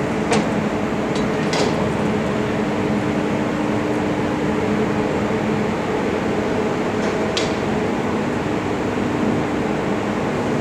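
Steady mechanical hum with a rush of air, as from large fans or machinery running, with a few light clicks about a third of a second in, at about a second and a half, and again past seven seconds.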